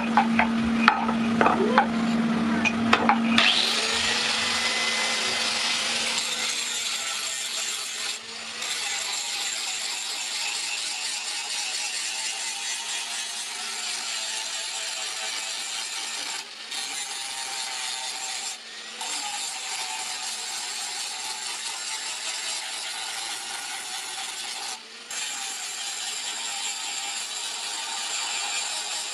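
Power grinder grinding a steel sickle blade: a steady, loud rasping that starts a few seconds in after some knocks, with a few short breaks where the blade is lifted off.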